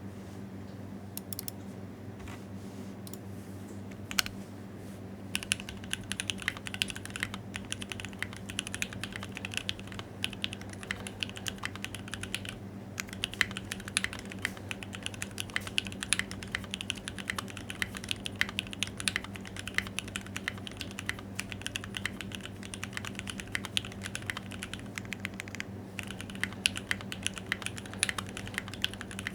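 Typing on a Think6.5 V2 custom mechanical keyboard with lubed Tangerine 62 g linear switches (Krytox 205g0, Durock films) in an FR4 plate, under PBT keycaps. A few isolated keystrokes come first, then fast continuous typing from about five seconds in, with brief pauses near the middle and near the end. A low steady hum sits underneath.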